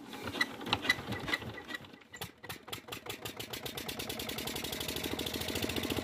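Petter diesel engine picking up speed: a few scattered metallic clicks, then its firing beats come faster and more even from about two seconds in.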